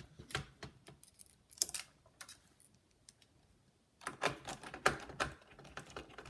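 Light plastic clicks and taps of a laptop keyboard and small parts being handled and pressed into place, in two clusters with a quieter stretch between them.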